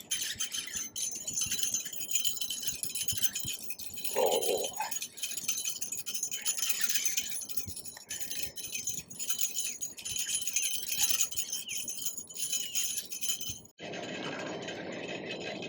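Baitcasting reel ratcheting in a rapid, continuous run of clicks as a hooked fish pulls line off it.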